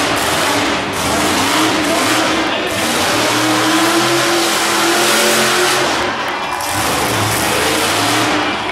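Monster truck engine revving hard as the truck drives and turns, its pitch rising and falling with the throttle.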